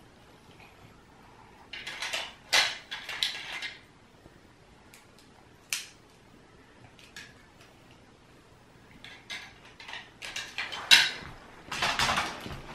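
Plastic toy building bricks clicking and clattering together as they are handled and rummaged through: a cluster of clacks about two seconds in, a single sharp click near six seconds, and a longer run of clatter towards the end.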